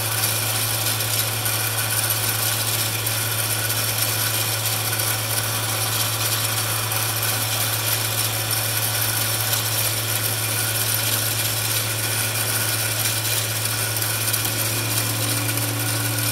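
MX-210V 8x16 benchtop metal lathe running steadily under a half-millimetre turning cut in aluminium: a constant motor and gear hum with the hiss of the cut. A second, slightly higher hum joins near the end.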